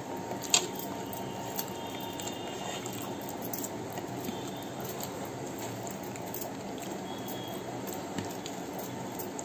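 Eating sounds: fingers mixing and squishing rice on a plate, and chewing, over a steady background noise. A few sharp clicks stand out, the loudest about half a second in.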